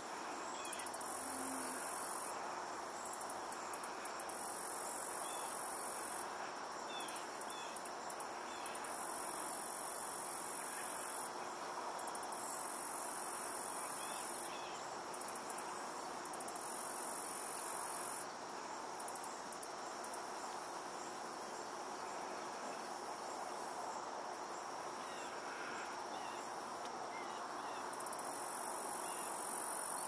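Insects calling: a steady high chirring, with a still higher, hissing trill that switches on and off in stretches of one to three seconds.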